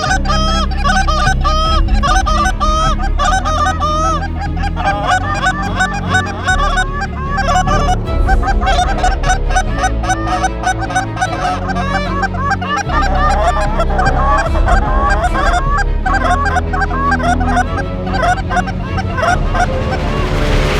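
Goose honking: many overlapping honks in quick succession through the whole stretch, over background music with steady low bass notes.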